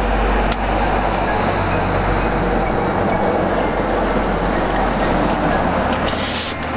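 Steady low mechanical rumble, with a short blast of compressed air from an air gun about six seconds in, blowing out the inside of the injector bore before the injector is fitted.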